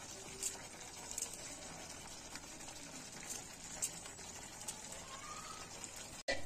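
Thick kofta curry gravy simmering in a pan on a gas stove: a steady low hiss with a few faint pops scattered through it.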